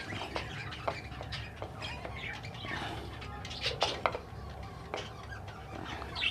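A room of caged pet birds chirping and squawking in the background, many short calls overlapping, with a few sharp clicks mixed in.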